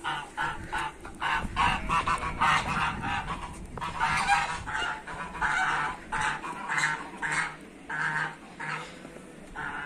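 Flock of domestic geese honking again and again, several short calls a second, overlapping one another.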